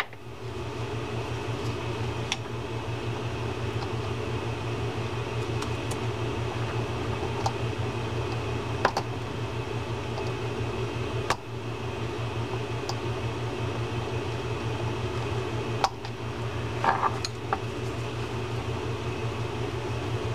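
Steady low mechanical room hum, with a few sharp, scattered metal clicks as a small steel pick works an E-clip off a spinning reel's gear shaft.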